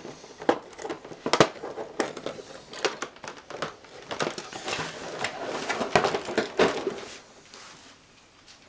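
Plastic packaging crinkling and clicking as statue parts are handled and pulled free, with one sharp click about a second and a half in and a busier run of rustling later, dying down near the end.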